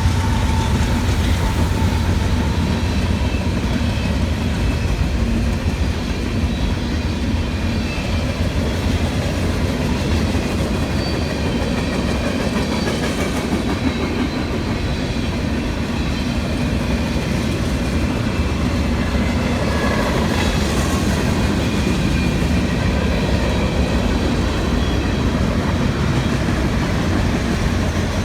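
CSX manifest freight train's cars rolling steadily past, a continuous loud rumble of steel wheels on the rails.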